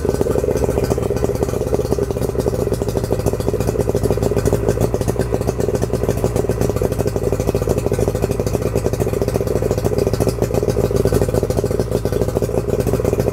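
2001 Yamaha 60 hp two-stroke outboard motor running steadily, just after starting, with an even, rapid beat. The owner says it runs great with no issues.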